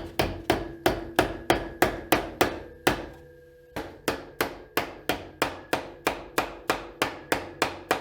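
A hammer driving tacks through a new spring clip into a reclining chair's frame. It strikes in a steady run of about three blows a second, each with a short ring, with a brief pause about three seconds in before the blows resume.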